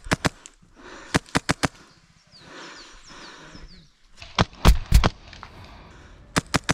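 Airsoft guns firing in short strings of sharp pops. Clusters of two to five shots come about a second in, again around four and a half to five seconds, where the loudest shots have a low thud, and near the end.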